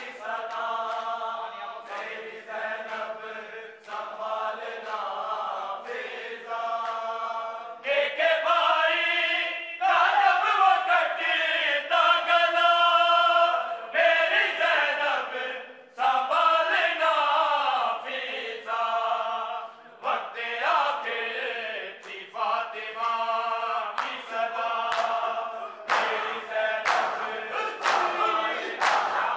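A group of men chanting an Urdu noha (Shia mourning lament) in unison with no instruments, in long held phrases with short breaks. Near the end, sharp, regular slaps of matam (chest-beating) come in, about one a second.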